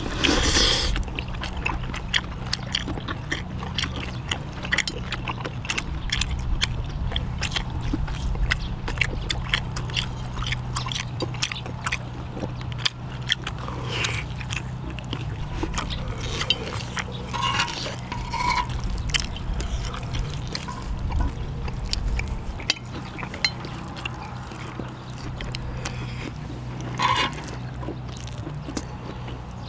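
People eating a meal of lamb ribs and noodles: chewing, with many small clicks and scrapes of utensils on dishes and a few louder bursts, over a steady low hum.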